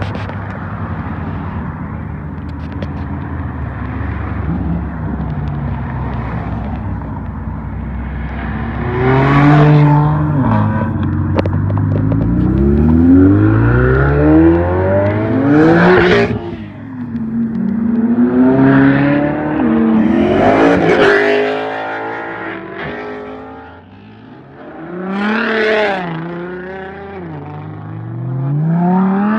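Sports cars pulling away one after another, including a red Ferrari V8, each engine revving up through the gears with rising pitch and breaking off at upshifts. Before the first car leaves, about eight seconds in, there is a steady rumble of idling engines.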